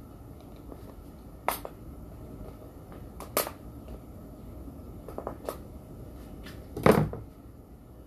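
Sharp pops and ticks from a lidded wok of bopis cooking over heat, a handful of them about every two seconds, with the loudest and fullest near the end.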